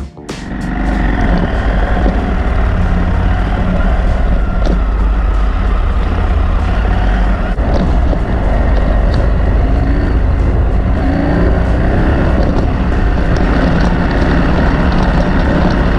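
Adventure motorcycle being ridden: steady engine note under loud, constant wind and road noise.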